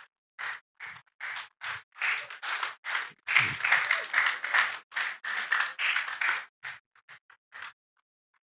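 An audience clapping in applause. The claps quicken into a fairly even beat, are loudest in the middle, and thin out to a few scattered claps near the end.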